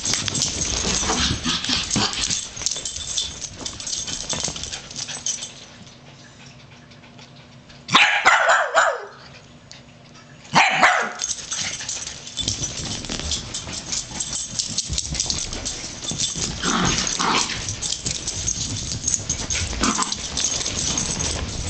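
Two dachshunds playing rough, with two loud barks near the middle and a few quieter barks later, over noisy scuffling.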